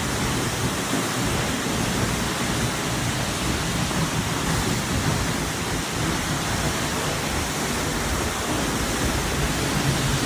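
Seljalandsfoss waterfall heard close up: a steady rush of falling water, with wind buffeting the microphone in the low end.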